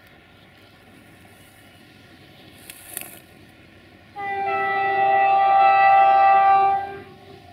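Horn of a CFR class 64 locomotive sounding one long blast of several steady tones together, starting about four seconds in and lasting about three seconds as the train approaches.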